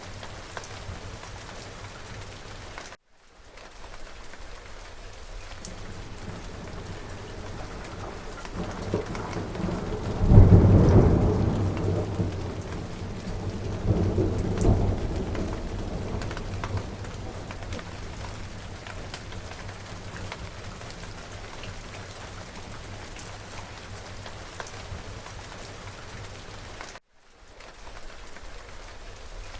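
Steady rain falling, with a peal of thunder that builds about a third of the way in, breaks loudest, rolls again a few seconds later and fades away. The rain sound cuts out for a moment twice, near the start and near the end.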